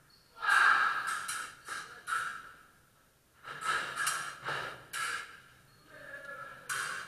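Sabre fencing action: quick sabre blade contacts and footwork on the piste, in two bursts of four or five sharp strikes with a short pause between.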